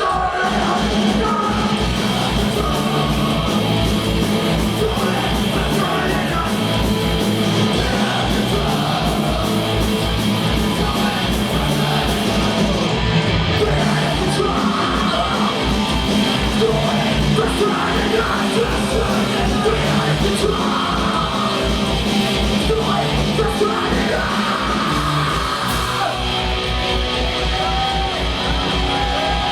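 Punk rock band playing live: distorted guitars and bass over a fast, steady kick-drum beat, with shouted vocals.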